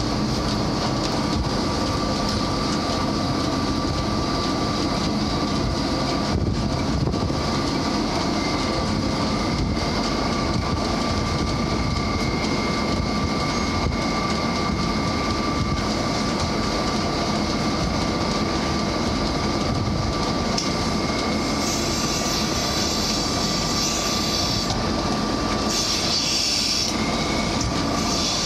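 Milking machine vacuum system running steadily: a loud mechanical drone with a constant high whine.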